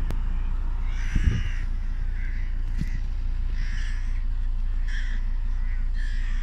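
A large flock of crows cawing, with a fresh burst of harsh calls roughly every second, over a steady low rumble.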